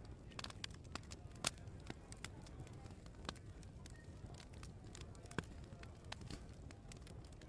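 Open wood fire crackling, with irregular small pops and two sharper snaps, about a second and a half in and again after about five seconds, over a low steady background murmur.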